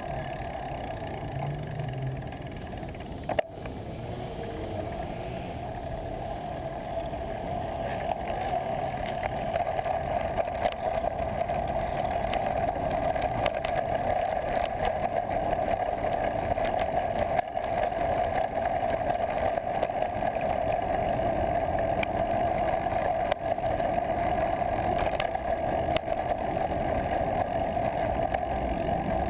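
Steady, muffled rush of wind and road noise from a moving bicycle, picked up by a GoPro Hero 2 mounted on the bike, with small scattered clicks. It gets a little louder about eight seconds in.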